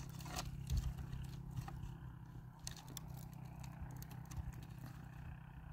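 Dry sticks and twigs clattering and crackling in short, scattered clicks as they are handled on a brush pile, over a steady low hum.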